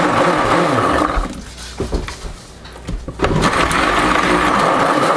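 Epica stick blender buzzing in a plastic bucket of soap-making oils with oats and clay. It cuts out about a second in and starts up again past the middle.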